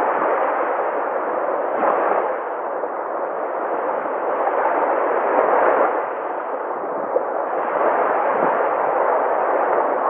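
Sea waves breaking and washing in: a continuous rushing surf that swells and eases every few seconds.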